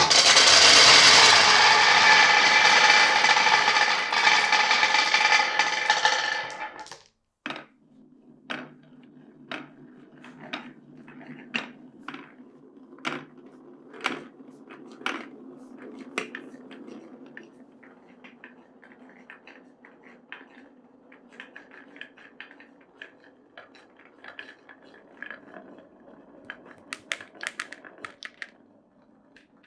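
Glass marbles running through a wooden marble run: a loud, dense clattering rattle for about the first seven seconds, then a steady low rolling sound along the track with single clacks about once a second and a quick cluster of clacks near the end.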